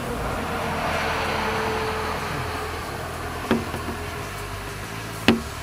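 A hand slapping a sticker flat onto a large wooden sign: two sharp knocks on the wood, the second louder, about two seconds apart in the second half. Before them a rushing noise swells and fades.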